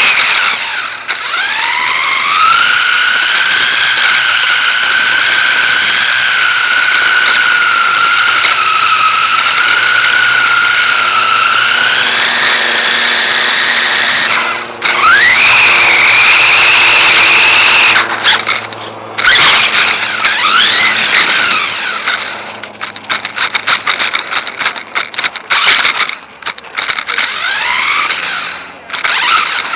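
Dromida DB4.18 RC buggy's electric motor and drivetrain whining, the pitch rising and falling with the throttle. For the first half it is a long, fairly even run; in the second half the whine cuts in and out in short bursts with clatter and rattles from the car over the ground.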